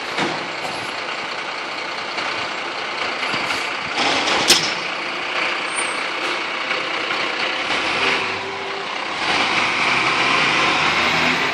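Fire engine running steadily beside the crew, with a short sharp noise about four and a half seconds in; the running grows louder from about nine seconds.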